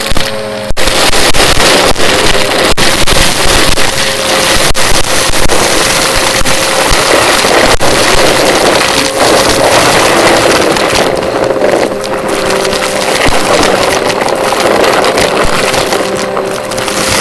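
Vacuum cleaner running steadily at full speed, a loud rushing hiss over a held motor whine, with frequent sharp clicks and crackles.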